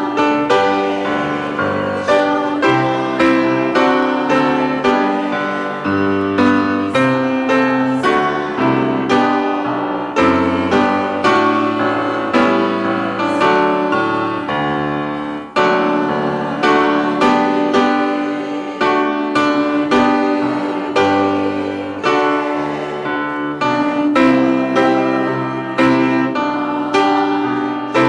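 Piano played solo, a steady run of notes and chords, each one struck and then ringing out and fading.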